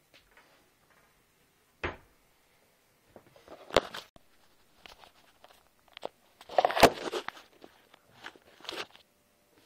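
Handling noise from the recording phone as it is moved about and set down on a table: a few sharp knocks, the loudest about seven seconds in, with rustling and small clicks between them.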